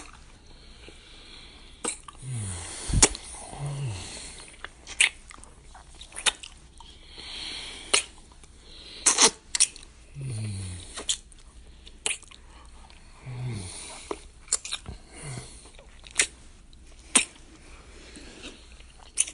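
Close-up kissing: irregular wet lip smacks, some sharp and loud, mixed with breathy exhales and short low hums that fall in pitch.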